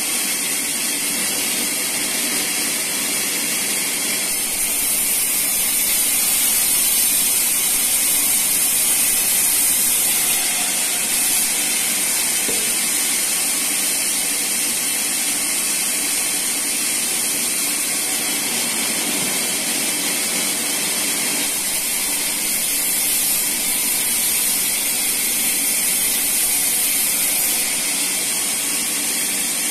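Band sawmill running steadily, its motor and blade making a loud, even whir.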